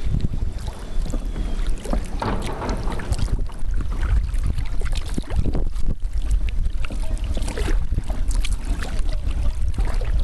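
Wind buffeting the microphone in a steady low rumble, over the irregular splashes of kayak paddle strokes in wind-whipped water.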